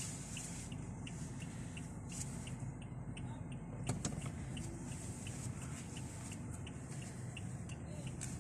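Inside a car cabin, the engine hums steadily at low speed while the turn-signal indicator ticks evenly, about three ticks a second. A single sharp click comes about four seconds in.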